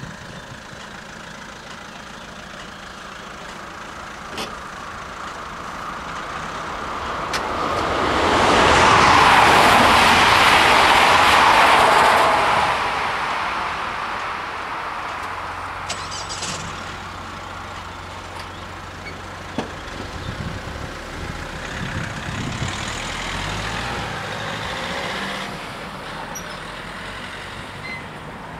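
A train passing over the level crossing: a rush of noise that swells, peaks about eight to twelve seconds in, then fades. Afterwards road vehicles idle and pull away, with a second, smaller swell of engine noise near the end.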